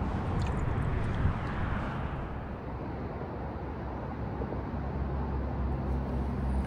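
Small splashes and drips of lake water in the first couple of seconds as a fish is released by hand. After that comes a steady low rumble of wind buffeting the microphone.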